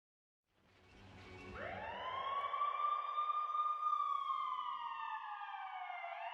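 Warning siren winding up to a high held pitch, then slowly sliding down. It starts about a second in over a faint hiss.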